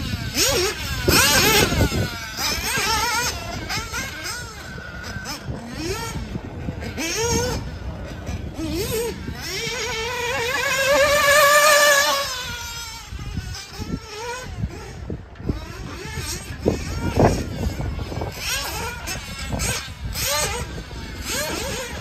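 Radio-controlled model cars racing round a track, their motors whining and repeatedly rising and falling in pitch as they accelerate and brake, with scattered clicks and knocks. The loudest is a long rising whine about halfway through.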